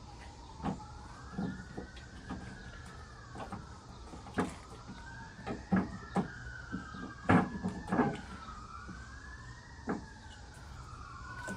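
An emergency vehicle siren wailing, its pitch slowly rising and falling in overlapping sweeps. Scattered sharp clicks and knocks of hand work on a pickup tailgate, as the backup camera's wiring is fed through it, sound over it.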